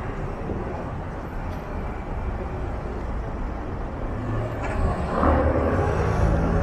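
Street traffic noise, with a motor vehicle's engine and tyres growing louder from about four and a half seconds in as it passes close by.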